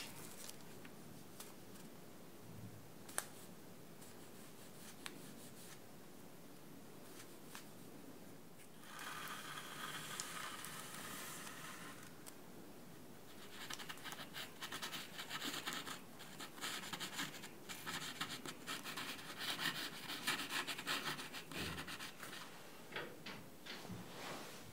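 Plastic nozzle of a squeeze tube of chocolate scratching and rustling on paper while a jack-o'-lantern face is piped: a few faint clicks at first, then scratchy rustling in two stretches, the longer and louder one in the second half.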